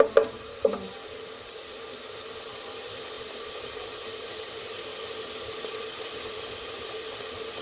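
Chopped onion cooking in oil in a pot, a steady hiss, with a sharp clink just after the start.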